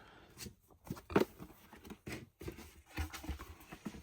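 Media cases, art cards and a book being handled and packed back into a collector's box: scattered light clicks and knocks of plastic cases and soft rustling of card.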